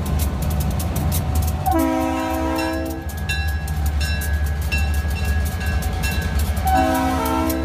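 Diesel locomotive passing close by, its engine running with a steady low rumble, sounding two chord-like blasts on its air horn: one of over a second about two seconds in, and another starting near the end.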